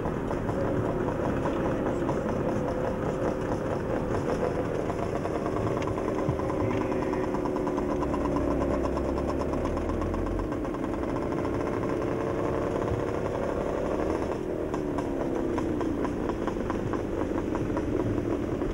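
Vehicle engines running on the move, heard from inside a moving vehicle. The engine pitch climbs slowly, drops abruptly about fourteen seconds in, then climbs again.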